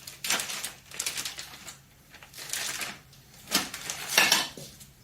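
Metal hand tools clicking and rattling on the engine in several short bursts of rapid clicks, the loudest near the end.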